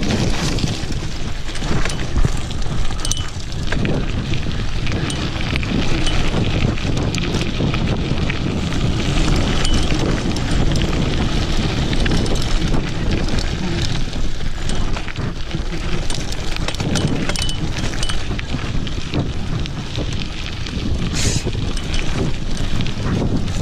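Mountain bike riding fast down a rocky dirt trail: tyres crunching over gravel and loose stones, the bike rattling over the bumps, with wind buffeting the handlebar-mounted microphone.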